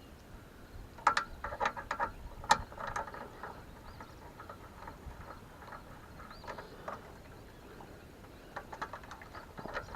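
Small sharp clicks and rattles of hand tools and hardware being handled and worked: a quick run of them a second or so in, then a few scattered ticks near the end.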